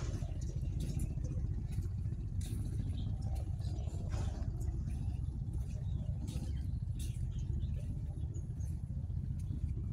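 Wind buffeting the phone's microphone: a steady low rumble that flutters unevenly, with scattered faint clicks.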